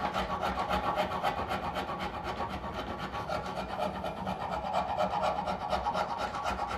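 Steel hand rasp scraping across a wooden table-leg blank in rapid short back-and-forth strokes, truing a hand-planed chamfer down to a marked line.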